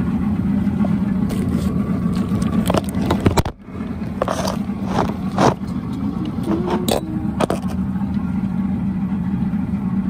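Boston Whaler Outrage's outboard engine running steadily while the boat is underway. In the middle come a few knocks and scrapes from the phone being handled, with a brief dropout of the sound about three and a half seconds in.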